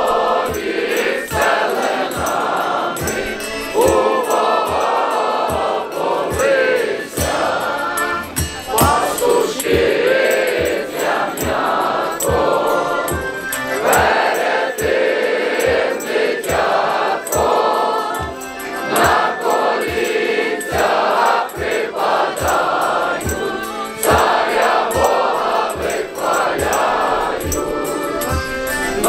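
A large crowd of carolers singing a Ukrainian Christmas carol (koliada) together in chorus, over a steady low beat.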